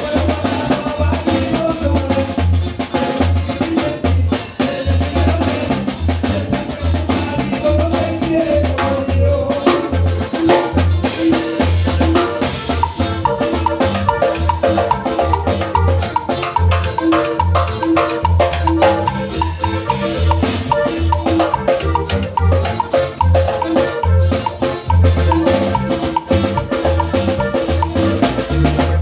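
Norteño dance music without singing, driven by a steady bass and drum beat.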